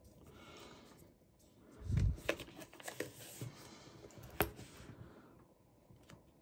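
Two hardcover books handled and stood upright side by side on a mat: a soft low thump about two seconds in as one is set down, then light taps and rustles of the covers, with one sharper click a little after the middle.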